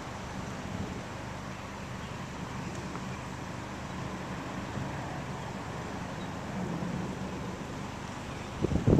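Steady rushing of strong storm wind, with a louder gust buffeting the microphone near the end.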